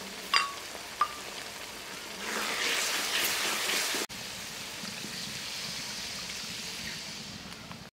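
Spiced onion masala sizzling in a metal karahi, with two sharp metallic clinks in the first second as green chilies are added. About four seconds in, water is poured from a clay pot into the hot pan, giving a steady hiss.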